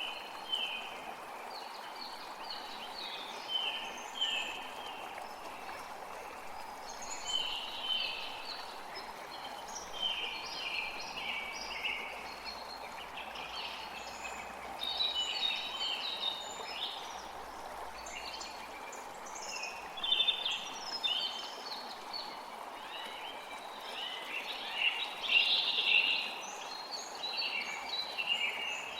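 Songbirds chirping in quick clusters of short, high notes over the steady rush of flowing water.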